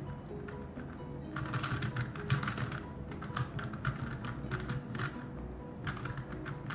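GAN Megaminx being turned fast during a speedsolve: rapid bursts of plastic clicking and clacking as its faces are flicked, with short pauses between bursts.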